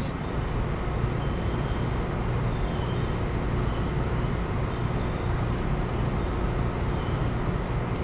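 Steady low background rumble of the shop, even throughout with no distinct knocks or clicks.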